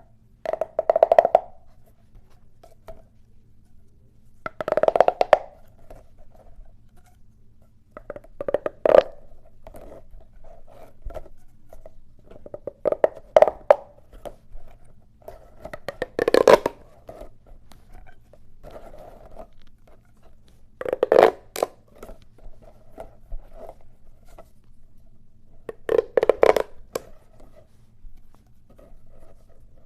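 Corrugated plastic pop tubes stretched and squashed, their ridges snapping in a quick crackle. Seven bursts about four seconds apart, with faint clicks between over a low steady hum.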